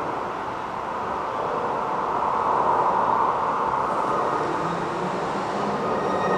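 Steady noise of a passing train, with a thin high wheel squeal starting near the end.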